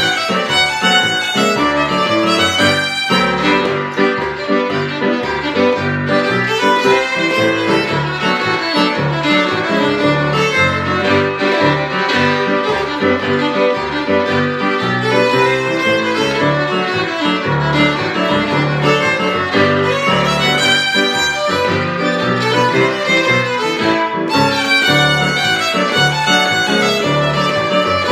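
Fiddle and digital piano playing an old-time jig together, the fiddle carrying the tune over a steady piano accompaniment.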